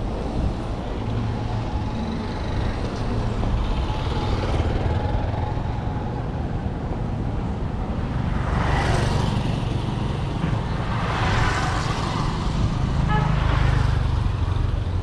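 City street traffic with a constant low rumble, as two vehicles pass close by, one a little past halfway and another a few seconds later.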